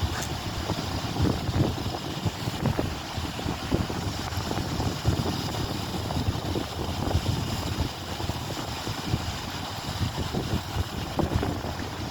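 Wind buffeting a phone's microphone: a low rushing noise that rises and falls in uneven gusts.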